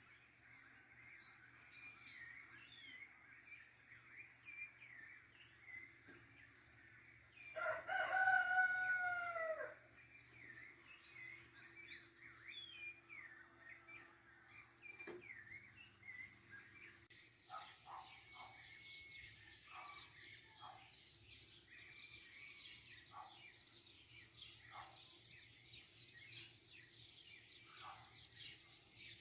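Dawn chorus of small birds chirping and twittering, growing denser in the second half, with a rooster crowing once, loudly, about eight seconds in.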